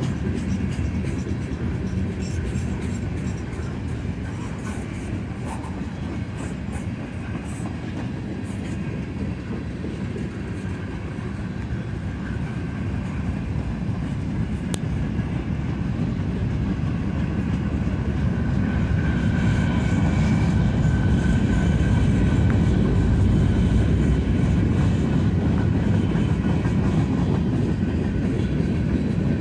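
Freight train cars rolling past at speed: a steady rumble of steel wheels on the rails that grows louder over the second half.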